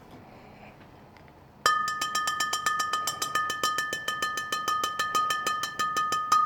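Bell-like ringing: rapid metallic strikes, about six or seven a second, over a steady two-pitched ring, starting suddenly about a second and a half in and ending with one louder strike that rings on.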